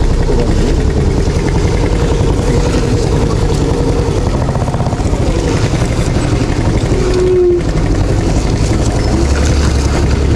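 A vehicle's engine running steadily under load, with a continuous low rumble of travel over a rough dirt road.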